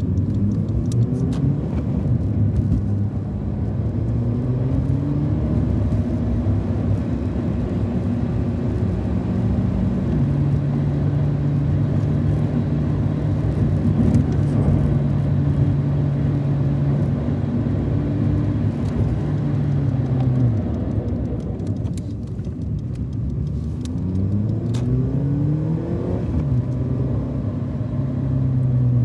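Car engine heard from inside the cabin while driving: it revs up through the gears at the start, holds a steady pitch through the middle, drops off about 20 seconds in, then climbs through the gears again around 23 to 26 seconds in, over steady road noise.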